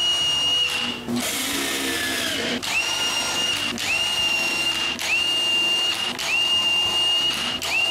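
Cordless drill with a self-centering hinge bit drilling pilot holes through a piano hinge into a wooden lid. It runs in short bursts of about a second each, six in all: a high motor whine that spins up quickly and holds steady, then stops as the bit moves to the next hole.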